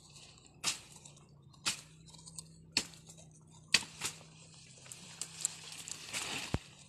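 Blade chopping through weeds and brush: five sharp cuts about a second apart, then a couple of seconds of leaves and brush rustling and crackling as cut growth is pulled away.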